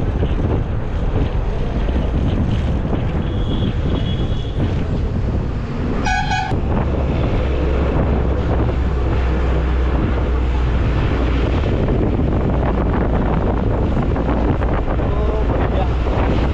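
Wind buffeting the microphone over a loud, steady low rumble, with a short horn-like beep about six seconds in.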